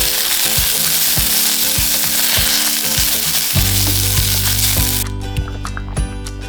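Food frying in a hot pan, a loud steady sizzle that cuts off suddenly about five seconds in. Background music with a steady beat plays underneath.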